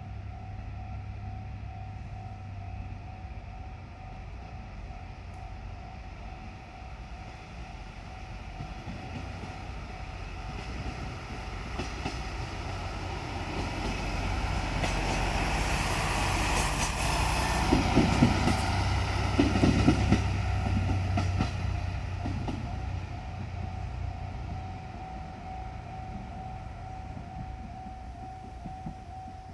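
A JR Shikoku diesel railcar passing over a level crossing. Its engine grows louder, peaks with a run of wheel clacks over the rail joints about two-thirds of the way through, then fades. The crossing's warning bell rings throughout.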